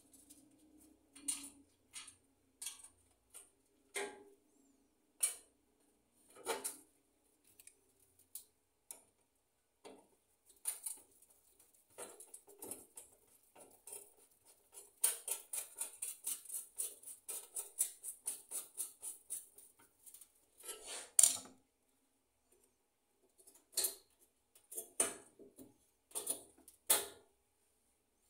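Screwdriver working the screws on an enamelled sheet-steel gas stove top: scattered metal clicks and taps, with a quick run of clicks, about four or five a second, for several seconds in the middle.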